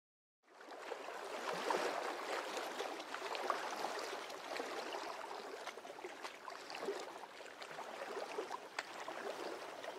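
Steady rush of running water with scattered small clicks and splashes, starting about half a second in.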